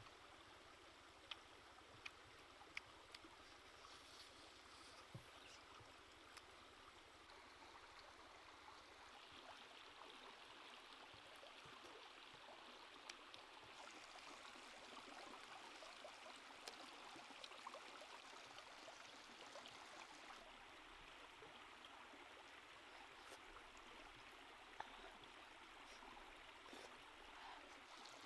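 Very faint hiss of a small stream running, with a few soft clicks scattered through it.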